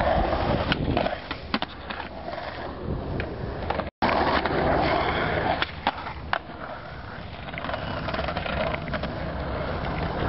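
Skateboard wheels rolling on concrete, broken by sharp clacks of the board popping and landing and the scrape of the trucks grinding along a bench edge.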